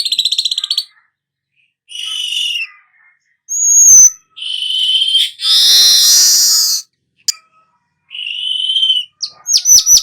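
Manyar (weaver bird) song in separate phrases with short silent gaps: a chattering trill, a high whistle, a long harsh buzzing 'nyerut' phrase about halfway through, and quick down-slurred notes near the end.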